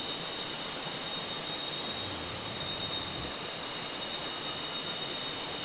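Night chorus of tropical jungle insects: several steady high-pitched trills held together, with a short, higher chirp repeating about once a second, over the steady rush of a nearby river.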